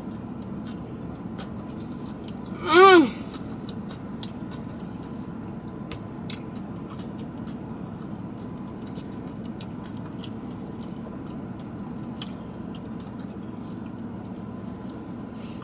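A person chewing a mouthful of sushi, with faint wet clicks of the mouth. About three seconds in comes one loud, short hummed "mmm" with a bending pitch, a sound of enjoying the taste.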